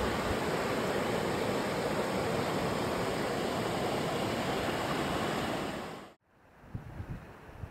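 Steady rush of a mountain torrent's flowing water, which cuts off abruptly about six seconds in. After that it is much quieter, with low gusts of wind on the microphone.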